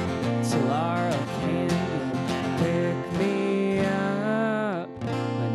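Acoustic guitar strummed live, with a long wavering melody note held over the chords that breaks off near the end.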